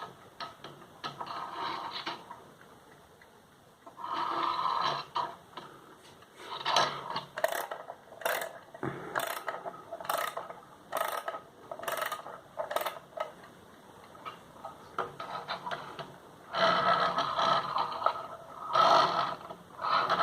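Mechanical alarm clock being wound by its key: the mainspring ratchet clicks and grinds in several bursts of turning, with a run of sharp pawl clicks a little under one a second in the middle.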